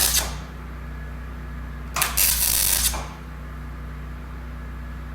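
Welder laying short tack welds on a steel truck frame: a crackling sizzle that stops just after the start, then a second tack about two seconds in that lasts about a second. A steady low hum runs underneath.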